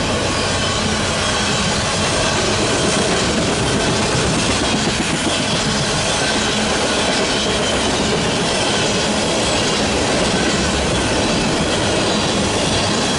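Empty oil tank cars of a long freight train rolling past, a loud, steady rumble and clatter of steel wheels on rail with a faint high wheel squeal.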